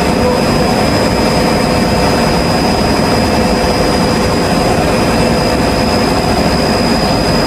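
Loud, steady drone of running industrial machinery in a compressor plant room, with a thin high whine held throughout.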